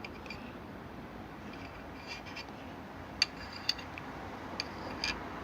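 Small metal parts and tools being handled: soft rubbing broken by a few sharp, ringing clicks and clinks, the loudest about three seconds in.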